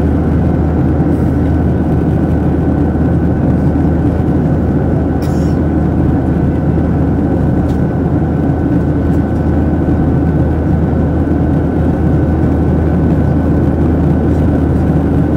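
Steady cabin noise inside a Boeing 737-700 in flight: the rush of air over the fuselage and the low hum of its CFM56-7B jet engines, with a thin steady whine above.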